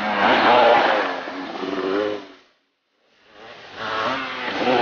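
Kawasaki KMX 125 single-cylinder two-stroke dirt bike engine revving up and down as it is ridden, cutting off abruptly about two and a half seconds in. After a brief silence the engine comes back, rising in level.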